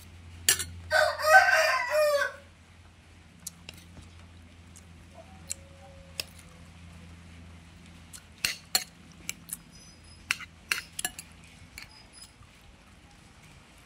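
A rooster crowing once, loud, about a second in; afterwards only a few faint scattered clicks and taps.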